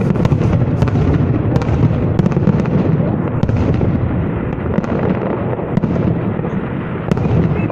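Fireworks salute: a dense, unbroken run of deep booms with many sharp cracks among them.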